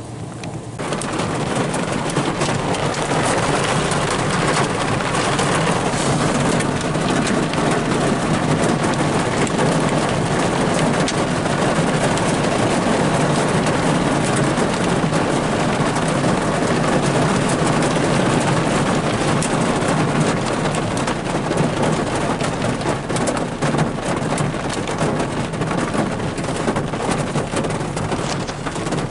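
Heavy rain hitting a car, heard through an open side window as a dense rush full of drop impacts. It jumps in loudness about a second in and then stays steady.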